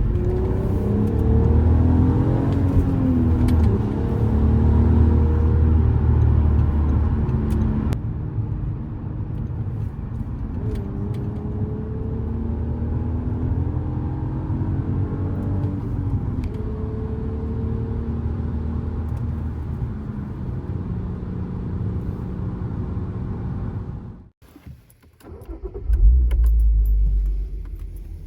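Audi A3 3.2's VR6 engine and exhaust running with a deep low rumble, the revs rising and falling several times. Near the end the sound cuts out briefly, then comes back as a loud low rumble.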